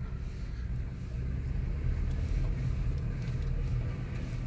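Toyota Tacoma TRD Off-Road running at low speed on a dirt trail, a steady low rumble of engine and drivetrain with a few faint knocks.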